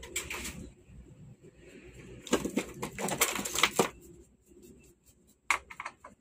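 Clicks and rattles of hands handling parts on the TV's open metal back, loudest as a dense cluster of sharp clicks about two seconds in lasting over a second, with shorter groups of clicks near the start and near the end.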